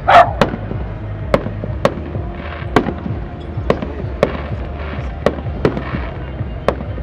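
Fireworks shells bursting in a rapid series of sharp bangs, about ten in seven seconds, the loudest right at the start.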